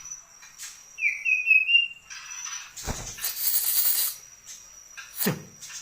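White-rumped shama singing: a loud whistled phrase that glides slightly upward about a second in, followed by a harsh, rasping note. A few sharp knocks are heard around it.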